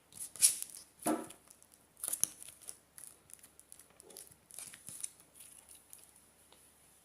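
Homemade stretchy slime being stretched and poked by hand, giving irregular clicks and crackles. The loudest come in the first second or so and again around two seconds in, then they grow sparser and fainter.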